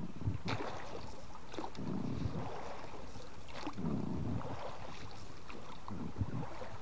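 Small boat on calm water: soft splashes and knocks against the hull, with a few light clicks and faint wind.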